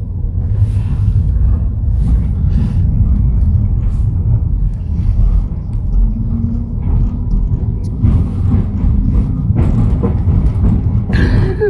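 NGT12 low-floor tram running along street track, heard on board as a loud, steady low rumble of wheels and running gear. A faint hum rises for a moment about halfway through.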